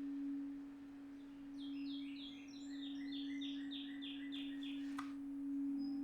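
Contemporary chamber music for viola and baritone saxophone: one low note held steadily, while a run of quick, high, falling bird-like chirps comes and goes, about three or four a second. A single sharp click near the end.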